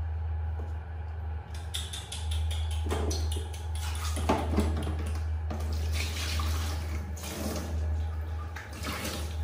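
Water splashing and sloshing in a plastic baby bath as a baby monkey is bathed in it, irregular splashes starting about one and a half seconds in, over a steady low hum.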